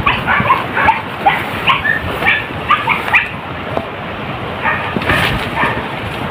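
Hunting dogs giving quick, high-pitched yelps, several a second, easing off about halfway through and starting again near the end: the pack giving tongue while searching the brush for wild boar.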